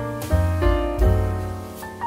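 Background music: keyboard notes over deep bass notes that come in several times.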